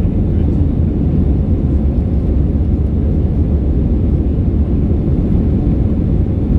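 Cabin noise of an Airbus A319-111 in flight: a steady low rumble of its CFM56 engines and rushing air, heard from inside the cabin.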